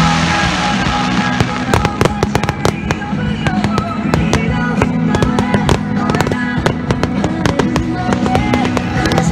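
Fireworks crackling in a rapid run of sharp cracks and pops, thickening about a second and a half in, over music playing throughout.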